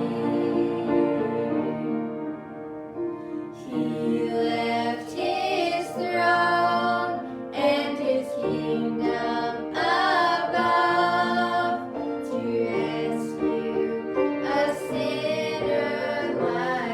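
Hymn sung with instrumental accompaniment, the voices holding long notes with vibrato.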